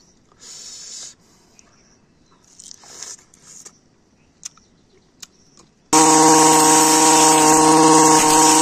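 A few faint chewing sounds as a piece of crisp fruit is eaten, then, about six seconds in, a backpack brush cutter's small engine comes in loud, running steadily as it clears undergrowth.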